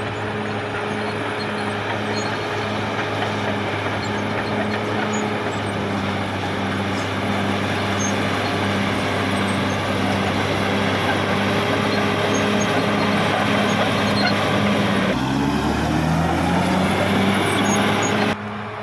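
Caterpillar D6R XL bulldozer's diesel engine running under load, with a steady hum and a regular pulsing throb, over broad mechanical noise. About fifteen seconds in the engine pitch rises as it revs up, and the sound drops off abruptly just before the end.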